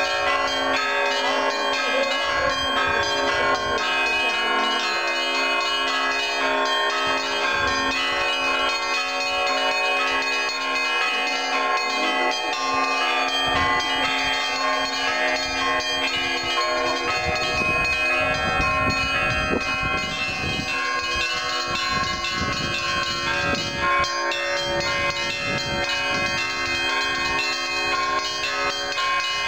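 Orthodox monastery church bells ringing a continuous Easter peal, many bells sounding together in overlapping steady tones. Low thumps come in from about halfway through.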